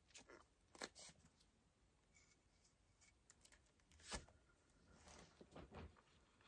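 Near silence, with a few faint soft knocks and rustles from gloved hands handling a painted coaster and spinning a hand-turned turntable; the loudest is a short knock about four seconds in.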